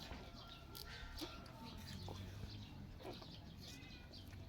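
Quiet background with a few faint, short animal calls scattered through it.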